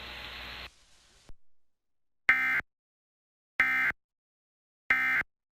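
Emergency Alert System end-of-message code: three identical short bursts of digital data tones, about 1.3 seconds apart, which close a required monthly test. A faint hiss cuts off within the first second before them.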